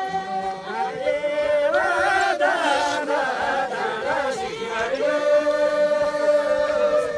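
A group of voices singing a slow Karmarong folk dance song together, holding long notes at the start and again in the second half, with the melody moving in between.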